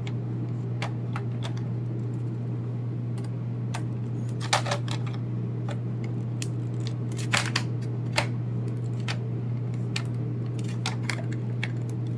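Hard plastic parts of a toy spaceship clicking and knocking as a wing that will not seat is pushed and worked into its slot, in irregular taps with the loudest clusters about four and a half and seven seconds in. A steady low hum runs underneath.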